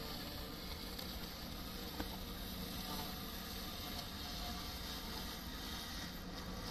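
Robot lawn mower running across grass: a steady hum from its cutting motor, with one short click about two seconds in.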